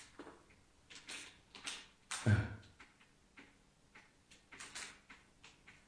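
Faint scattered rustles and light clicks, with one soft thump about two seconds in: handling and movement noise close to the microphone.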